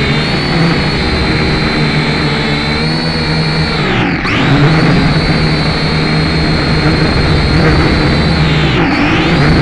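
Motor and propeller of a radio-controlled model aircraft, heard right next to the on-board camera: a loud, steady whine with a buzz beneath it, which drops briefly in pitch and comes back up about four seconds in and again near the end.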